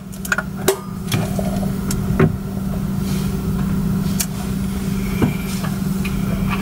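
A steady low hum runs throughout. Several short, sharp clicks and knocks come from handling a Nikon F4S camera body as it is turned over and set down.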